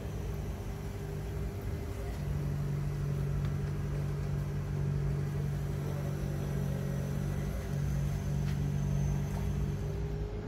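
Steady low hum of an idling engine, its pitch shifting slightly a couple of times.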